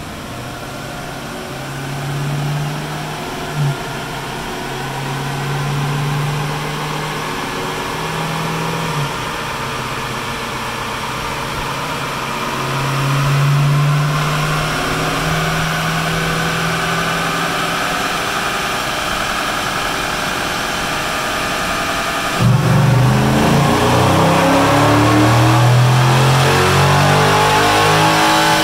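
Dodge Challenger Scat Pack's 6.4-litre HEMI V8, fitted with a cold air intake and a tune, running on a chassis dyno. For about twenty seconds it runs at part throttle, its note slowly climbing. About three-quarters of the way through it goes suddenly much louder and its pitch rises to the end, as in a full-throttle dyno pull.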